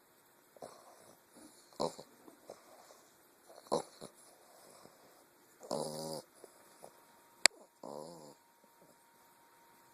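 English bulldog puppy snoring in its sleep: short pitched snores about every two seconds, the longest about six seconds in. A single sharp click comes just before the last snore.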